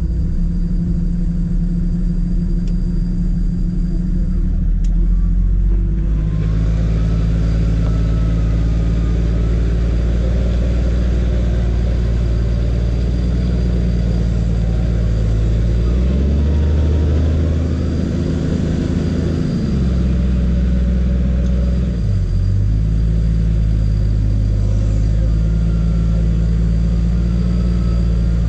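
Toyota 80 Series Land Cruiser engine running steadily in low-range first gear as the truck pulls itself up a slippery mud slope on its winch, the revs rising for a few seconds past the middle and then dropping back. A faint wavering whine sits above the engine.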